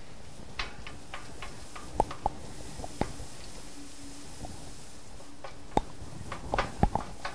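Scattered light metallic clicks and taps as a utensil turns asparagus spears on a metal sheet pan in the oven, with a cluster of sharper clicks near the end.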